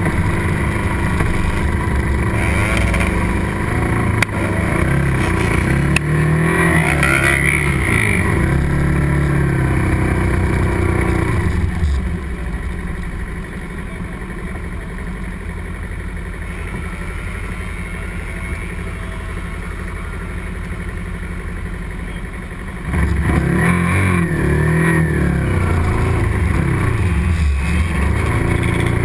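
Small sport motorcycle engines at race pace, revs repeatedly climbing and dropping through gear changes. From about twelve seconds in the sound falls to a quieter, steadier drone, then rises again at about twenty-three seconds.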